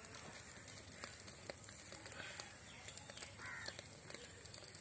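Faint crackling and ticking of a small wood fire in a clay stove as a plucked chicken is held in its flames to singe. A bird calls twice in the background, about two seconds in and again past the middle.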